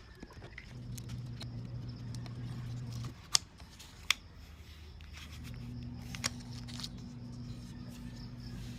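A few sharp clicks and taps, the loudest two close together about three to four seconds in, typical of small parts being handled while a laptop is taken apart. Under them runs a low steady hum that drops out for a couple of seconds in the middle.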